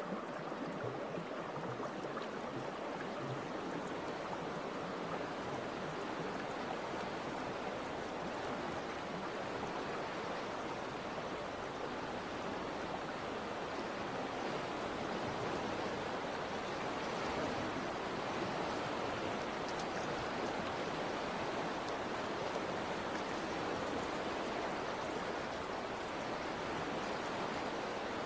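Steady rushing noise like running water, even and unbroken.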